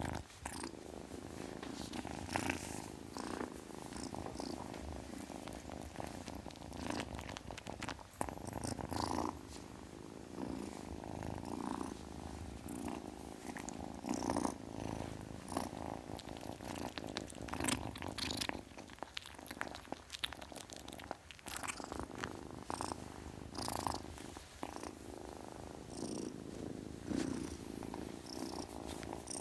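Kitten purring continuously, with frequent brief clicks mixed in.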